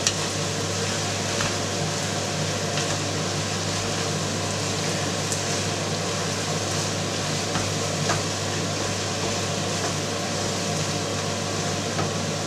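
Minced meat and rice frying in a non-stick pan, a steady sizzle, with a wooden spatula stirring and now and then lightly scraping or tapping the pan, over a steady low hum.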